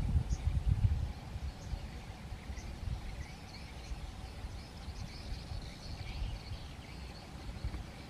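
Birds chirping outdoors: short high chirps every second or so, then a longer warbling run in the second half. Under them is a low rumble, loudest in the first second.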